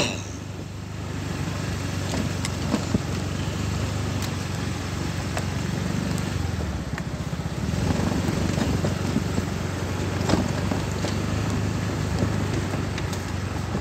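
Motorcycle engine running steadily at low revs, with scattered clicks and knocks over it. The engine note eases off briefly about halfway through.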